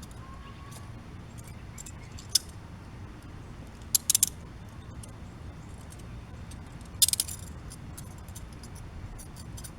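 Metal handcuffs clinking and rattling as the wearer works at them. There are sharp metallic clinks about two and a half seconds in, a cluster around four seconds, and another cluster near seven seconds, with faint ticks in between.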